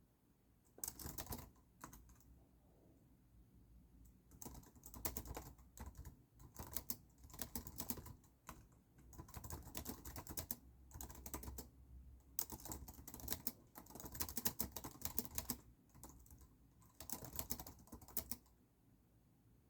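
Typing on a computer keyboard in bursts of rapid key clicks with short pauses between them, stopping near the end.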